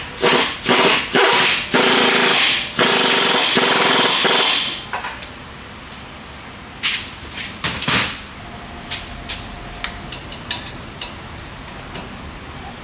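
Pneumatic wrench on the front suspension bolts: a few short bursts, then two longer runs of about one and two seconds. Scattered metallic clicks and knocks follow.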